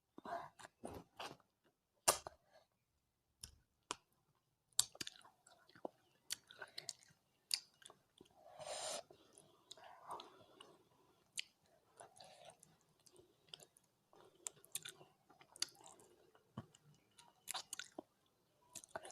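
Close-miked wet chewing of rice and curry, with a string of short mouth clicks and lip smacks and a longer wet sound about nine seconds in.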